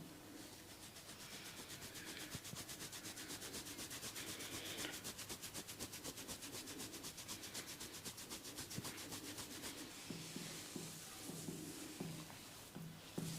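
Fingers rapidly scratching and rubbing through the hair and scalp during a head massage: a fast, even rasping rhythm of many strokes a second, easing off in the last few seconds.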